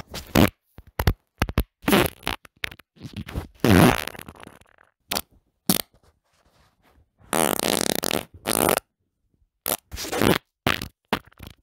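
Human farts, one after another: many short blasts with gaps of silence between them, and two longer pitched ones, the loudest about four seconds in and another lasting about a second and a half near the middle.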